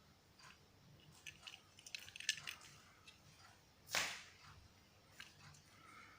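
Small clicks and crinkling from handling a diecast toy car's plastic-and-card blister package, with one louder, brief rustling scrape about four seconds in.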